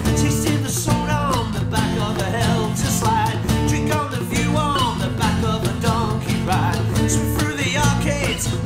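Acoustic pop-rock song in an instrumental passage. Guitars play over a steady bass and drum beat, with a lead melody line that slides between notes.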